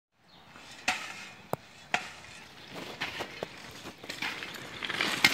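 A shovel working gravelly dirt: a few sharp knocks of the blade in the first two seconds, then softer scrapes and taps. A gritty noise builds near the end.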